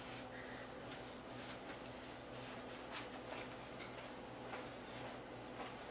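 Faint, scattered soft ticks and a light patter of granulated sugar being shaken from a measuring cup onto a set custard, over a low steady hum.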